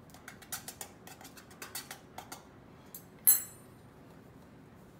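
A metal fork scraping and clicking against a metal baking sheet as flour is stirred with salt and pepper, a quick run of small clicks, then one sharp metallic clink with a brief ring a little past three seconds in.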